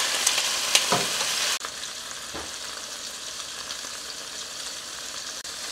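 Cubes of medium tofu sizzling and crackling in hot oil in a nonstick frying pan, just added. The sizzle drops suddenly to a quieter, steady hiss about a second and a half in.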